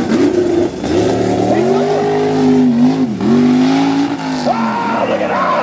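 Lifted Chevy Blazer mega mud truck's engine revving hard under acceleration: the pitch climbs, drops sharply about three seconds in, climbs again, then eases off near the end.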